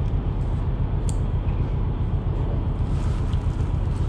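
Steady low rumble of wind buffeting the camera microphone, with a few faint clicks, one about a second in.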